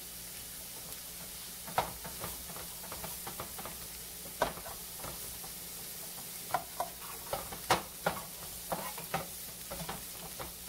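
Comb tooth mushroom pieces sizzling in butter in nonstick frying pans while spatulas stir them, with many short irregular taps and scrapes of the utensils against the pans.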